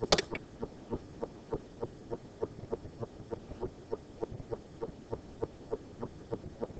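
Steady, even ticking, about four to five short soft ticks a second, with one louder, sharper click right at the start.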